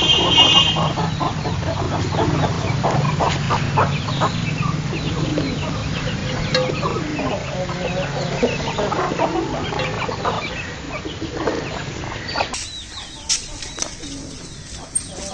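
A flock of chickens clucking as they feed, with many short calls overlapping, over a steady low hum. About twelve seconds in, the hum and most of the clucking drop away, leaving quieter sound with a few clicks.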